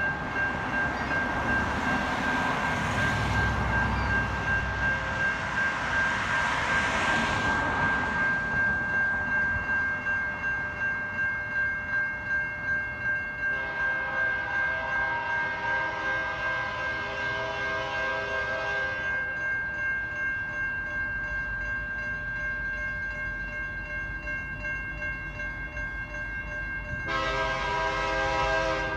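Railroad crossing bell ringing steadily as a Canadian National freight train approaches. The locomotive's air horn sounds one long chord about halfway through and starts another near the end. Over the first several seconds, tyres hiss on the wet road as cars pass.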